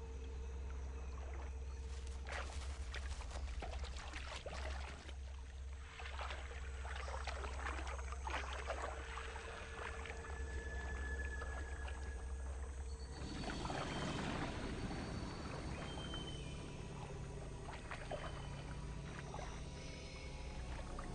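Water splashing and lapping as green iguanas swim, with irregular small splashes over a steady low rumble. The splashing grows fuller about thirteen seconds in.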